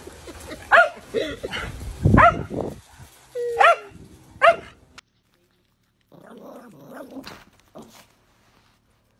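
Dog barking, four loud barks over about five seconds, then the sound cuts off suddenly; quieter sounds follow briefly.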